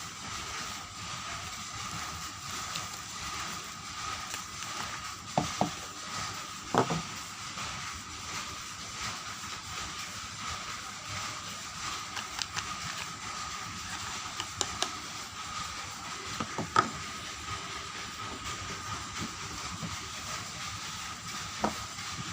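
Soap bars and their packaging being handled: scattered light taps and clicks, a few of them sharper, over a steady hiss with a faint high whine.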